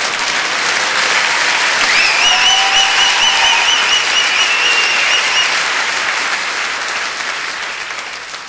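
Audience applauding, with a high, wavering whistle from the crowd from about two seconds in for a few seconds; the applause tapers off toward the end.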